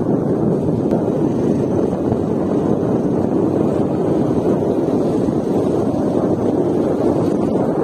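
Steady rushing noise of wind, even and unbroken, with no distinct events.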